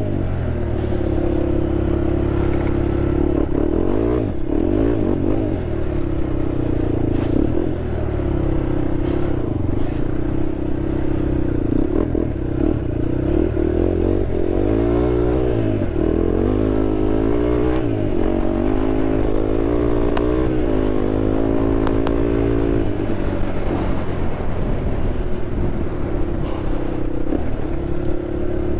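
Honda TRX sport quad's single-cylinder engine running under way off road, the revs repeatedly rising and falling with the throttle, with a few short knocks from the machine over rough ground.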